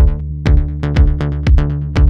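Electronic background music with a steady drum-machine beat, about two hits a second, over a sustained bass.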